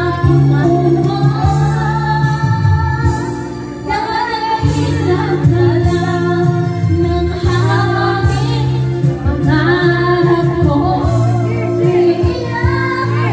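A woman singing karaoke into a microphone over a backing track with a steady beat.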